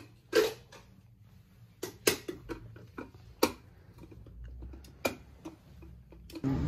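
Scattered sharp clicks and taps, about eight at uneven intervals with the loudest about half a second in, over a faint low hum in a small tiled room.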